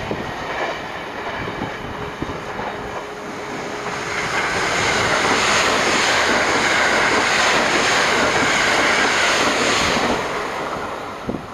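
White electric express train passing at speed on the near track, with a rising rush of wheels and air about four seconds in. The rush holds loud for about five seconds, then fades as the train pulls away. Before it comes, a fainter rumble of a train going off into the distance.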